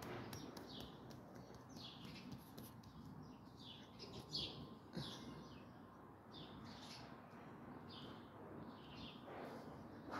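Small birds chirping faintly, a string of short high chirps about once or twice a second.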